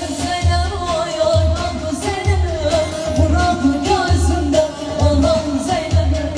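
Live Turkish folk-pop: a woman sings into a microphone over bağlama (saz) and band backing, with a steady bass beat about twice a second.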